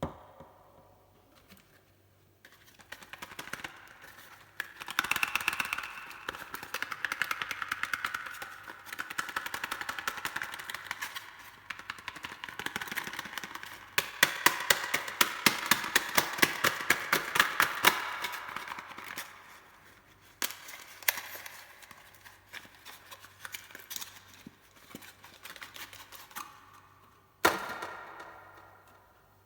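Soap packaging being unwrapped by hand: crisp, rapid crackling and clicking of wrapper and box in several long runs, with one sharp snap near the end.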